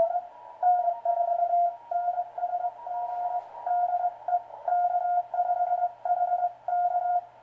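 Morse code (CW) signal received on a Heathkit SB-301 shortwave receiver: a keyed tone of about 700 Hz coming in dots and dashes over a narrow band of hiss. The low note comes from a 400 Hz crystal CW filter taken from an SB-104, fitted in place of the standard filter that gave about a 1 kHz note.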